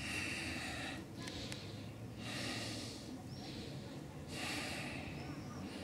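Three slow, heavy breaths close to the microphone, each about a second long and about two seconds apart, over a low steady hum, with a few faint bird chirps.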